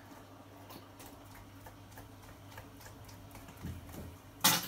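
Faint, irregular clicks and taps of hands handling craft bottles and containers on a table, with one sharp knock near the end.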